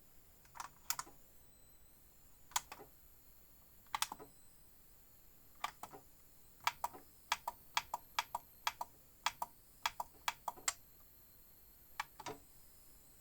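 Sharp plastic clicks from the control panel of an Indesit IWSB5093 washing machine as its buttons and program dial are worked. A few single and double clicks come first, then a quick run of about a dozen clicks at roughly three a second, and a last double click near the end.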